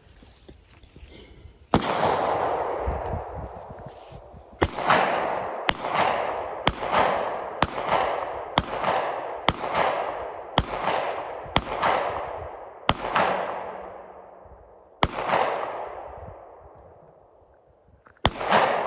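Suppressed Zastava ZPAP92 AK-pattern pistol firing single shots in slow succession, about a dozen of them. Most come about a second apart, with a couple of longer pauses near the end, and each shot trails off in a long echo.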